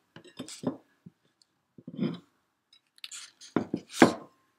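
Tableware being handled on a table: a series of light knocks and clatters as a ceramic plate and takeaway containers are moved about, with the loudest clink about four seconds in, followed by a brief ringing.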